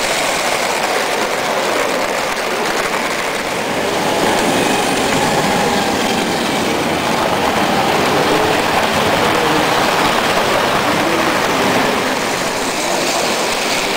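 Vintage model trains running close by on metal tabletop track: a steady clattering rattle of wheels and motors.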